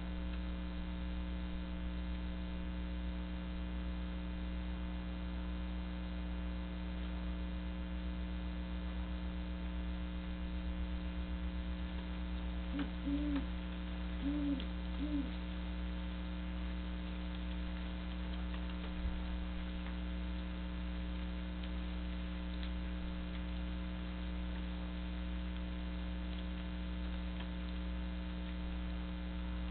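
Steady electrical hum throughout. A little under halfway in comes a short series of about five low, deep hoots from a great horned owl.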